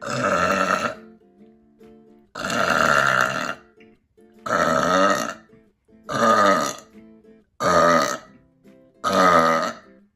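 A person letting out six loud, drawn-out burps in a row, each lasting a second or less, about one and a half seconds apart. Quiet background music plays between them.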